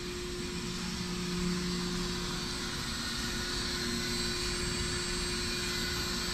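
Probat GG150 gas-fired coffee roaster running with its burner lit: a steady mechanical roar with a low, even hum.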